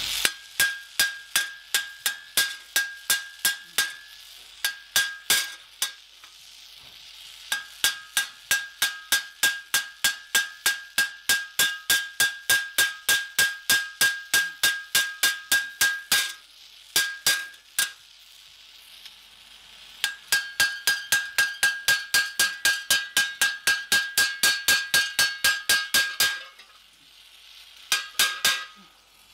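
Hand hammer striking hot steel on an anvil in quick, even blows, about three a second. Each blow has a high ring from the anvil. The blows come in runs broken by short pauses.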